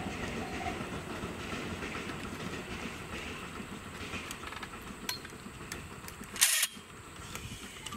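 DD51 diesel locomotive and its train running away into the distance, a low rumble with rail clatter slowly fading. About six and a half seconds in, a sudden short loud hiss cuts across it.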